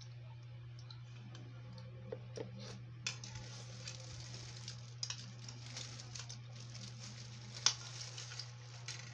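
Eating Coco Crunch cereal: a metal spoon clicking and scraping in a bowl, with the crunch of the cereal, as a run of small irregular clicks with one sharper click near the end. A steady low hum lies underneath.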